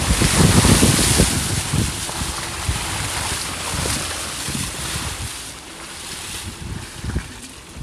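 Muddy puddle water thrown up by the tyres of a VW Tiguan as it drives through, splashing hardest in the first two seconds, then a continued rushing noise with scattered low knocks as the car bumps over the ruts.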